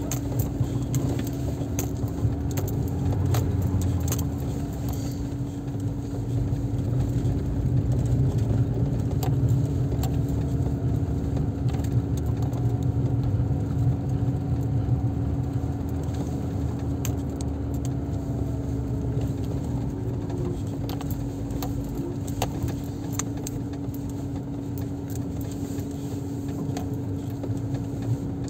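Car driving along a snow-covered rutted dirt track, heard from inside the cabin: a steady low rumble of engine and tyres with a steady hum, and frequent small rattles and clicks as the car rides over the ruts.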